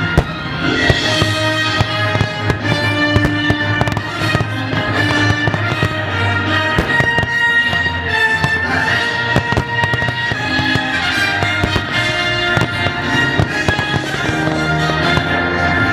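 Fireworks going off in rapid, irregular bangs over loud music played along with the display.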